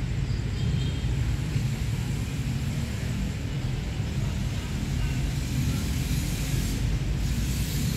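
Steady low background rumble, with a hiss that swells over the last few seconds.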